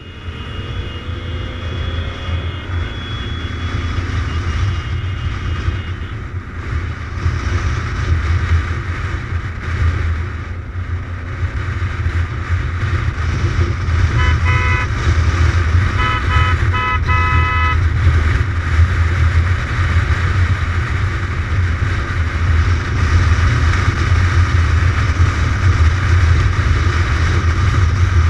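Kawasaki motorcycle engine running steadily at road speed, with wind rushing over the camera. About halfway through, a horn gives a string of short toots.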